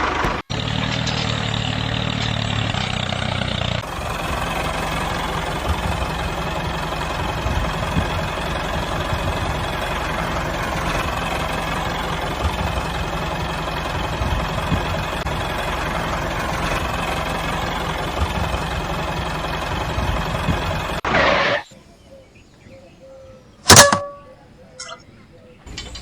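A small engine running steadily, its sound broken by edit cuts about half a second and about four seconds in; it stops abruptly about five seconds before the end, leaving quiet broken by one sharp click.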